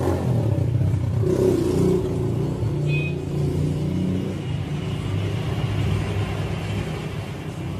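A motor vehicle engine running steadily, a low rumble with no change in speed. A brief high chirp sounds about three seconds in.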